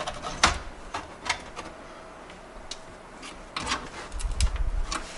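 A motherboard being shifted and lined up on the standoffs inside a PC case: irregular clicks, taps and light scrapes of board against case, the sharpest about half a second in, with dull handling bumps near the end.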